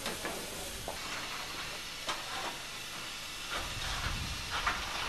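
Steam locomotive standing with steam hissing steadily, broken by a few short, sharper hisses, and a low rumble coming in at about three and a half seconds.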